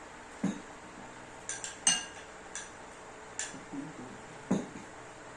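Kitchen utensils clinking and tapping against dishes: about eight short, sharp clinks at irregular intervals.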